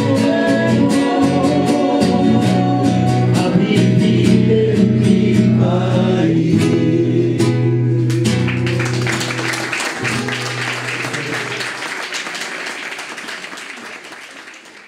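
A song with strummed acoustic guitar and singing, its last chord ringing on. Applause comes in about eight seconds in and fades away toward the end.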